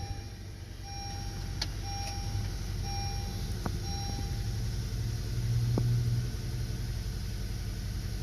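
Honda Accord engine just started and idling steadily, running without a misfire for now after its cylinder 1 ignition coil was moved to cylinder 4. A dashboard warning chime beeps about once a second and stops about four seconds in, and the engine note swells briefly about six seconds in.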